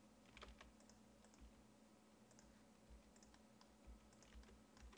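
Faint, irregular clicks and taps of a computer keyboard and mouse over near silence: keys pressed and mouse buttons clicked while editing.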